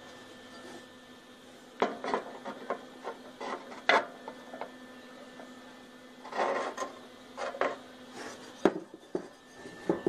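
Metal grill parts being handled and fitted by hand: irregular clinks, knocks and scraping, with sharp knocks about two and four seconds in and a longer scraping stretch around six and a half seconds. A steady hum runs underneath.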